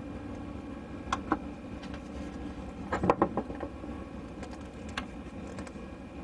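A few light clicks and knocks from plastic drain-pipe fittings being handled and glued together, over a steady low background hum.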